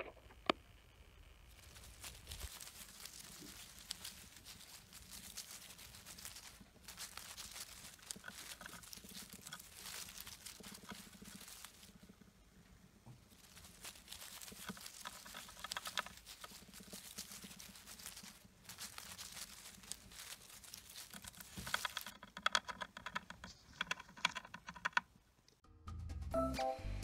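Hamster digging and burrowing through wood-shaving bedding: a dense, crackling rustle of shavings with a few short pauses. Soft music comes in near the end.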